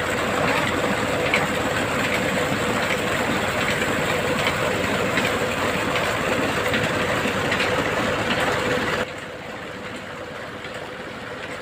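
Tube well pipe discharging a heavy stream of water into a brick tank: a steady rushing splash, with an engine running underneath as a steady hum. About nine seconds in the sound drops noticeably and carries on quieter.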